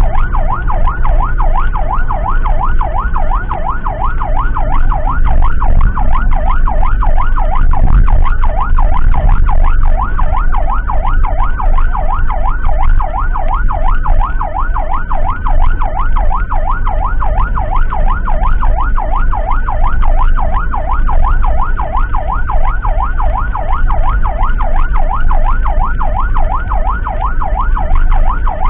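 Electronic emergency siren on a fast yelp, its pitch rising and falling several times a second without a break, over the steady low rumble of vehicle engine and road noise.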